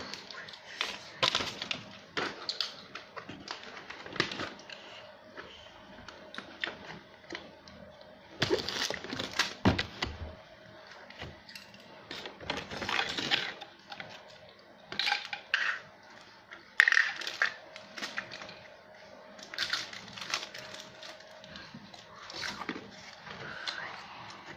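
Scattered clicks, taps and rustles of small objects and snack packaging being handled on a table, over a faint steady hum.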